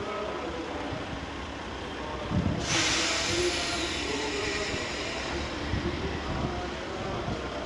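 A diesel railcar rumbling as it rolls slowly into the station, with a sudden hiss of air from its brakes about three seconds in that fades over the next few seconds.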